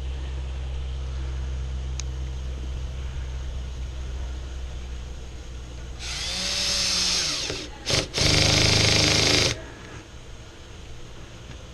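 A power drill driving screws, in two runs about six and eight seconds in with a short pause between, the second the loudest; a steady low hum runs under the first part.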